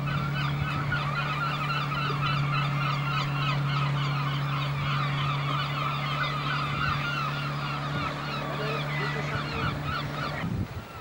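A large flock of gulls calling all at once, a dense chorus of overlapping squawks, over a steady low hum; everything cuts off suddenly near the end.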